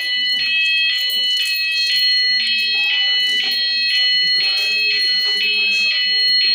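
Cooper fire alarm sounder going off: a loud, high two-tone alarm that switches pitch back and forth about every half second.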